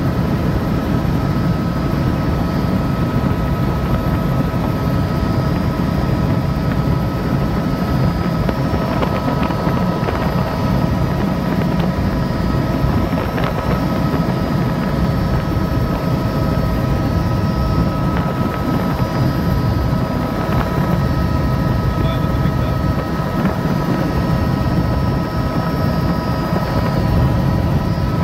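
Helicopter in flight, heard from on board: a steady low drone from rotor and engine with several constant high-pitched whining tones over it.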